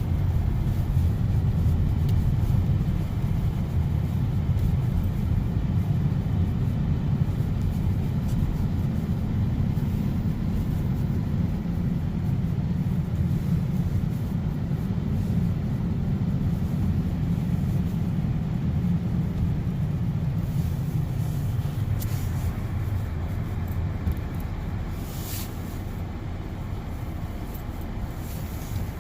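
Steady low rumble of a car's engine and tyres, heard from inside the cabin while driving on a snowy road. It eases off a little over the last several seconds, with a light click about 25 seconds in.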